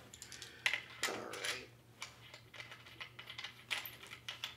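Scattered light metallic clicks and clinks of a camera slider's small metal fittings and feet being handled and fitted onto its rail, about half a dozen separate knocks with a sharper one about a second in.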